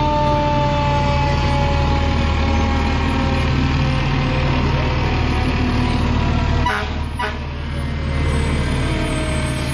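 Aerial ladder fire truck's diesel engine rumbling as it drives slowly past close by, while a siren winds down, falling slowly in pitch. A couple of brief clicks come about seven seconds in.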